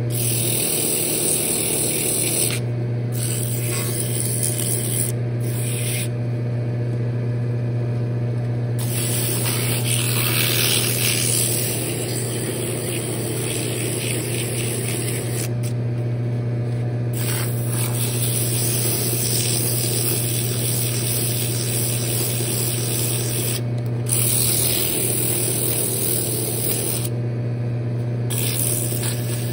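Wood lathe running with a steady low hum while sandpaper is held by hand against the spinning wooden lid, a hissing rub that drops out briefly several times as the paper is lifted and pressed on again.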